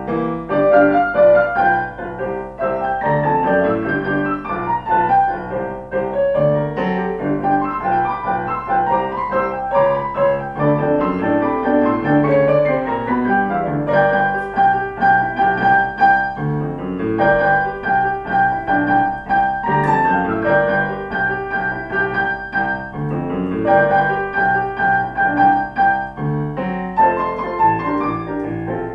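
Piano playing a piece with a moving bass line and chords; in the middle, a few high notes are held for a couple of seconds at a time over the accompaniment.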